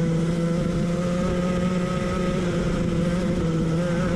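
Racing go-kart engine heard from onboard the kart, running at steady revs under power. The pitch holds nearly level, wavering slightly near the end.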